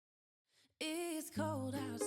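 Background music: after a short silence, a new song starts a little under a second in, with a singing voice and a bass line.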